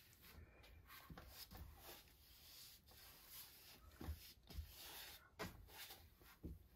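Near silence: faint strokes of a paintbrush spreading thick acrylic paint across a canvas, with a few soft low bumps in the second half.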